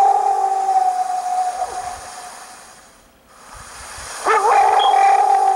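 A long howl held on one steady pitch fades out with a downward slide about two seconds in. A second howl starts near the end with a brief upward sweep, then holds steady. The recordist presents it as a possible Bigfoot.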